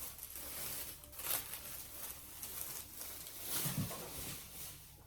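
Plastic bag crinkling and rustling as it is opened and the clothes inside are handled, coming and going unevenly with several louder crinkles.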